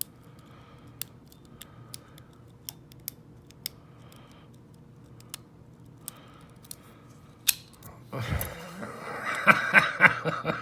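Lock pick and tension wrench working in a Tokoz padlock's tight keyway: sparse small metal clicks and scratches. About eight seconds in there is a thump, then louder, rapid scraping and clicking of the tools against the lock.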